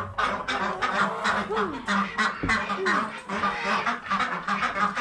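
A flock of domestic ducks quacking, many rapid overlapping calls at once, with a few longer falling calls among them.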